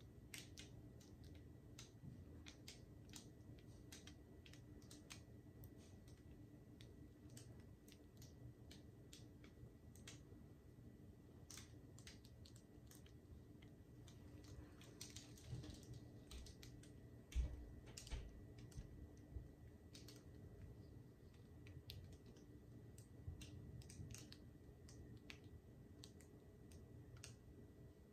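Faint, irregular clicks and light taps as a painting canvas is tilted and handled with gloved hands, with one low thump a little past halfway.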